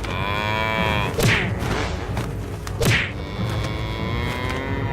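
Two cow moos, the first about a second long with a rising-then-falling pitch, the second starting about three seconds in and held longer; two short swishes fall between them.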